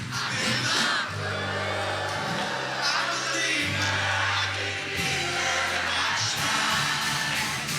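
Background music: a song with singing over a held, stepping bass line.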